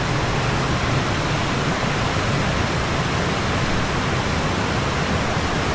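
Steady rush of water pouring over a small river waterfall, a continuous, even roar.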